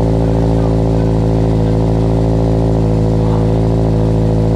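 2022 Subaru BRZ's 2.4-litre flat-four idling steadily on its first cold start through a newly installed Invidia N2 cat-back exhaust.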